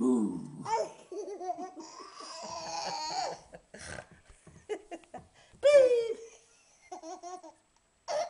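A toddler laughing in a string of giggles and squeals, the loudest a high squeal about six seconds in.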